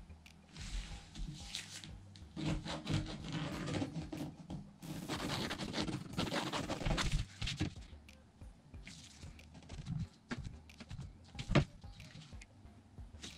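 Graphite pencil drawn along the edge of a metal metre ruler across marine-grade vinyl, a scratchy rubbing stroke lasting a couple of seconds, with the ruler sliding over the vinyl and cutting mat. Near the end come a few clicks and one sharp knock as the ruler is lifted and set down.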